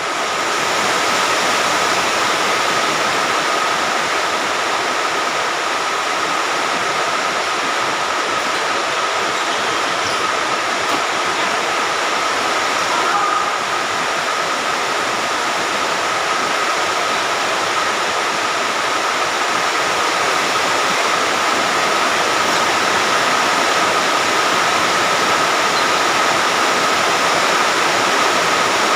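Heavy rain falling as a steady, even hiss, with a faint steady high tone running under it.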